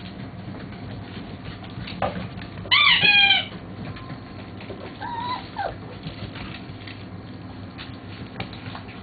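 Border Collie puppies at play: one puppy lets out a quick burst of high-pitched yelps about three seconds in and a softer squeal a couple of seconds later, with faint ticking of small paws between.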